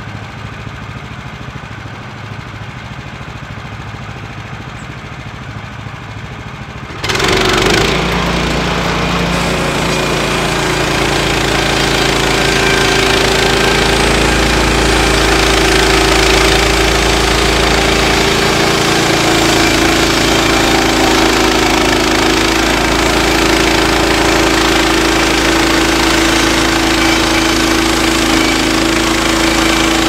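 Woodland Mills HM126 portable bandsaw mill's gas engine idling, then about seven seconds in it throttles up suddenly to full speed. The band blade then runs steady and loud through the log as the saw head is pushed along.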